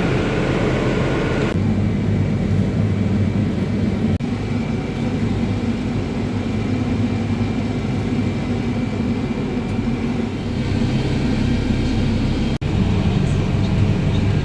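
A vehicle engine running steadily at a constant speed, with the sound changing abruptly a second or so in and dropping out briefly near the end.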